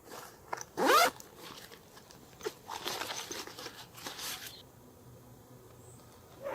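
A zipper pulled open in one quick stroke about a second in, rising in pitch, followed by lighter rustling and handling sounds.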